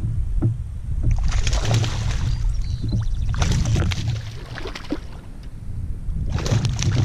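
Water splashing beside a kayak in three separate swells a few seconds apart, over a steady low rumble of wind on the microphone.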